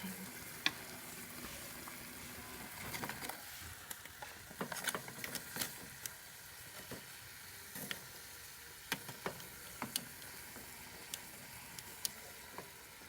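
Potassium nitrate and sugar mixture sizzling steadily in a pot as it cooks down, with scattered sharp clicks and knocks, busiest a few seconds in.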